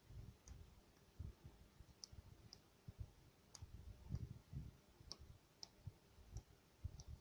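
Faint clicks of small tactile push buttons on a homemade RF transmitter board being pressed, about eight at an uneven pace, over soft low knocks of the board being handled.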